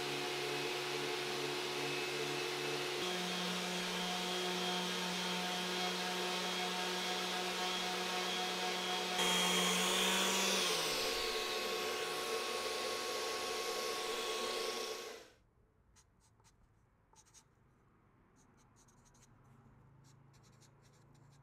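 Random orbital sander with a dust-extraction hose running steadily on a hardwood chessboard; some of its tones fall away about ten seconds in, and the noise cuts off abruptly at about fifteen seconds. Then faint scratching of a marker writing on the wood.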